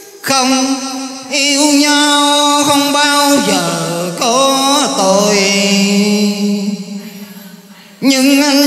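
A man singing long, wavering held notes with no clear words, in Vietnamese cải lương style, amplified through a microphone. The pitch slides down a few seconds in, the sound fades from about the middle, and a new loud phrase starts near the end.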